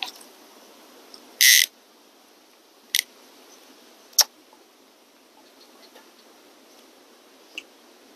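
A fly line swishing through the air once during a cast, heard as a short hissing rush, followed by a few sharp ticks spaced over the next seconds, over a faint steady hiss.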